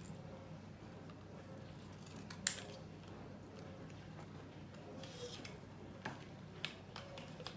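Scissors cutting paper: scattered snips and clicks, the loudest a single sharp snip about two and a half seconds in.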